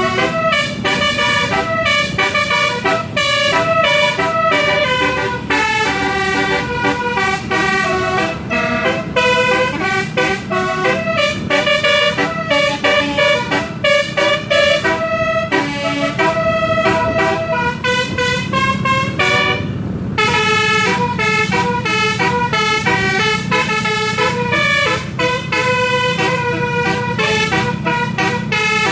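Basuri-type musical bus horn (telolet) playing a tune in quick stepped notes, over the steady hum of a bus engine. The tune pauses briefly about two-thirds of the way through.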